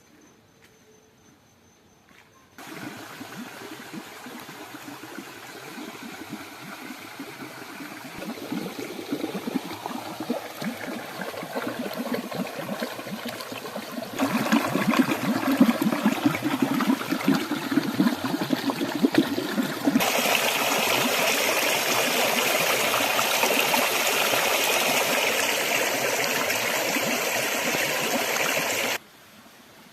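Rocky forest stream running and splashing over stones, a steady rushing trickle. It starts abruptly a few seconds in, jumps louder twice as if cut between closer spots, and stops suddenly near the end.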